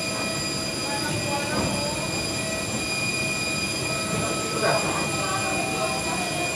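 Steady rumbling travel noise heard from inside a moving vehicle, with several steady high-pitched whining tones over it and faint background voices; a short rustle about four and a half seconds in.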